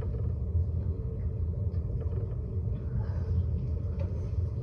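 A steady low rumble with no speech, even throughout.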